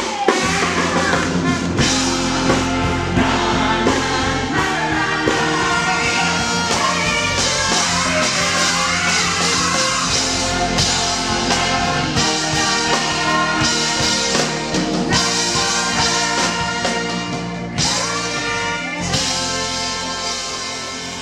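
A live rock band plays with singers over acoustic guitar, bass and drum kit. The music fades down near the end.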